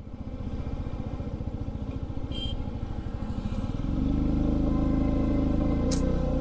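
Motorcycle engine running under way with a rapid, even low pulsing, heard from the rider's seat. About four seconds in it gets louder and fuller, and a short click comes near the end.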